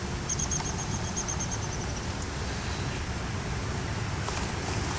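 Steady outdoor background rumble with no clear source, typical of distant traffic. In the first two seconds there is a quick, fading run of high chirps.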